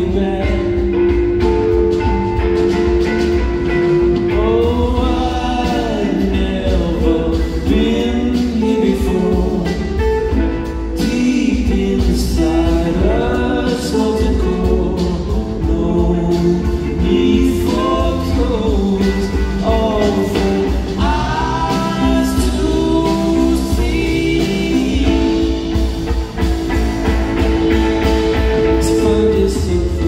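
Live band playing an instrumental passage of a rock song on guitars and drums, with a lead line that bends up and down in pitch over a steady bass and drum backing.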